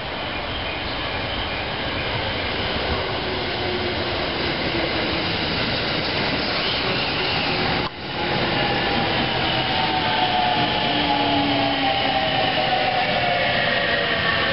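Electric commuter train in blue-and-cream Yokosuka Line livery pulling into a station, its running noise on the rails growing louder. From about ten seconds in, the motors' whine falls steadily in pitch as the train brakes.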